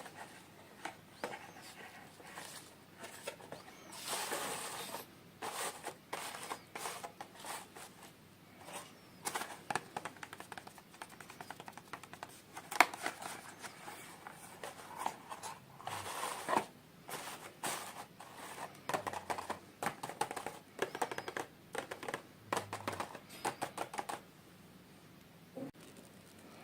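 Hands unboxing small toys: rustling and crinkling packaging with many light clicks and taps of small pieces being handled.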